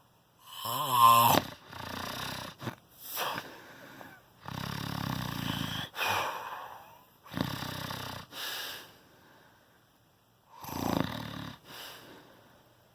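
A person snoring loudly and irregularly: a string of rough snores and snorts of uneven length, the loudest about a second in and a long drawn-out one midway, with short quiet gaps between.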